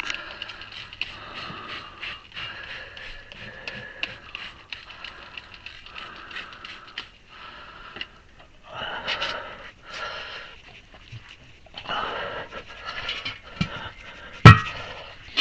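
Heavy, strained breathing and scraping as a steel tire iron levers a heavy-equipment tire bead over the rim. Near the end comes a single sharp clank with a brief ring, the loudest sound in the stretch.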